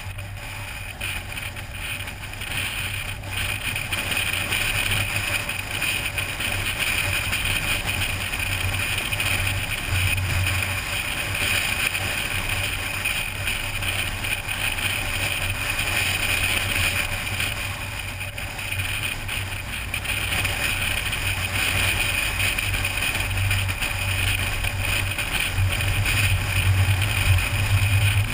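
Steady road and wind noise from a car cruising at highway speed: a low drone with a hiss over it, growing louder near the end.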